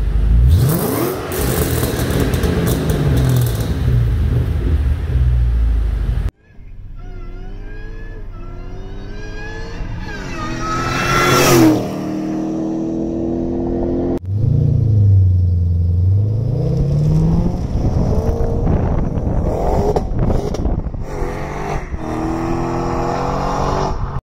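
Supercharged 4.6-litre V8 of a 2008 Roush 427R Mustang revving repeatedly through its exhaust, its pitch rising and falling, in three segments that break off abruptly about six and fourteen seconds in. A sharp rising whine peaks just before the second break.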